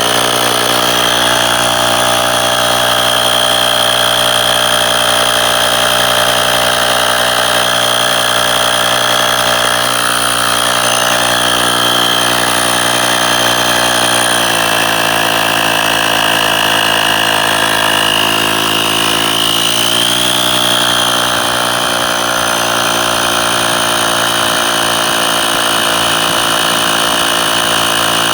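12-volt cigarette-lighter-socket electric air compressor (tyre inflator) running steadily, pumping air into a tyre. Its note shifts about halfway through and again a few seconds later.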